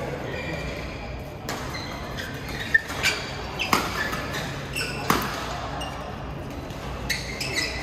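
Badminton rally: several sharp cracks of rackets striking the shuttlecock, with short shoe squeaks on the court floor, in a large echoing sports hall.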